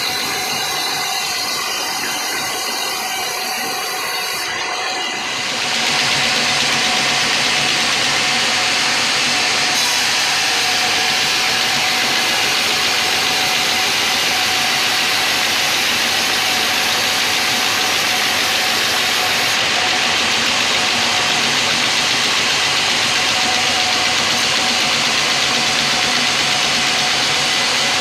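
Sawmill band saw running with a steady whine, then about five seconds in the blade bites into a large teak log and the sound thickens into a louder, steady cutting hiss that holds through the rest of the cut.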